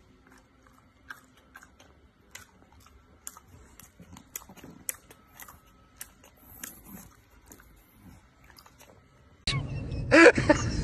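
Bulldog chewing crunchy carrot: faint, irregular crunches and clicks. Near the end a louder voice breaks in.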